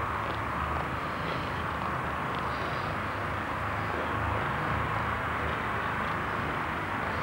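Steady outdoor background noise: a low rumble and an even hiss with no clear single source, and a few faint ticks.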